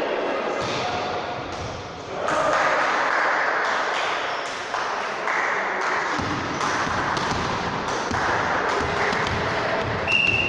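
Ball game in a sports hall: a ball knocking and bouncing and players' shoes, over players' shouts. Near the end comes a sharp, steady blast of a referee's whistle.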